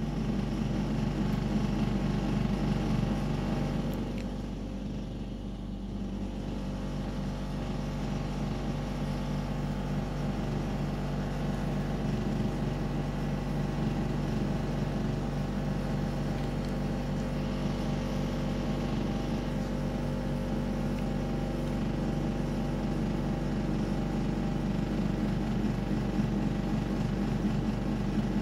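A steady low hum with several constant pitches, dipping slightly in loudness about four seconds in.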